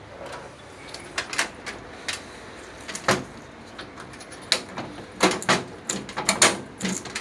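Sharp clicks and knocks of hard parts being handled while a DC converter module is fitted into a control box. A few come spaced out at first, then they crowd together in the last couple of seconds.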